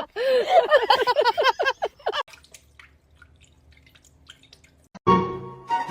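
A rapid run of watery drips or bubbling plinks for about two seconds, then quiet; music starts near the end.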